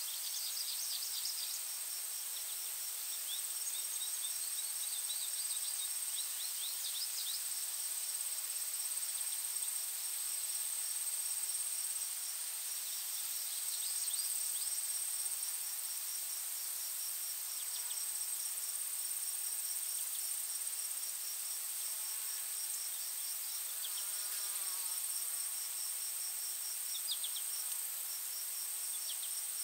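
Forest ambience of insects: a steady high-pitched trill, with a second insect pulsing rapidly and evenly. Several times, a small bird breaks in with a brief flurry of quick high notes.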